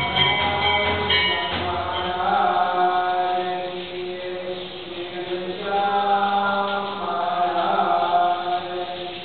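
Devotional chanting: voices sing long held notes, softer for a while in the middle and fuller again after about six seconds.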